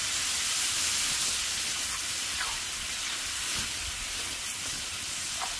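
Onion and tomato paste sizzling in hot oil on a large tava, a steady frying hiss.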